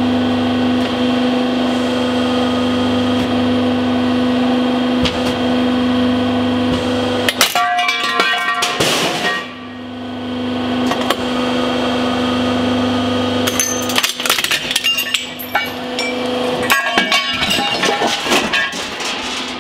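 Hydraulic press's pump motor humming steadily while the ram bears down on a cast aluminium Suzuki V-Strom 1000 motorcycle engine block. A run of crackling comes about halfway through, then from a few seconds later to the end the block gives a dense string of cracks, creaks and clatters under the load.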